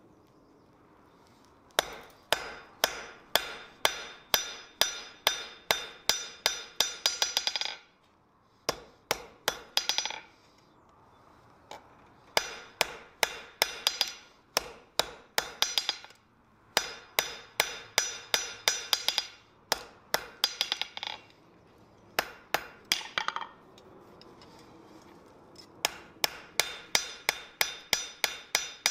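Hand hammer forging hot iron on an anvil: runs of ringing blows that quicken toward the end of each run, with brief pauses between runs. The hammering starts about two seconds in.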